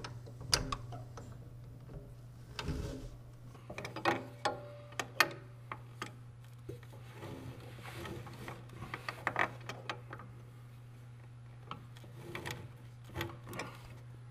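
Steel spanner wrench clicking and clinking against the spring preload nut of a snowmobile's front track shock as the nut is worked up the threaded shock body, in scattered, irregular clicks and knocks over a steady low hum. The nut is being tightened to stiffen the front track spring.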